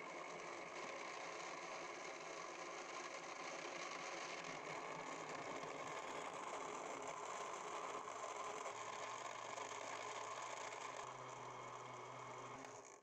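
Electric countertop blender motor running steadily, blending apricots, plums, water and ice cubes into juice.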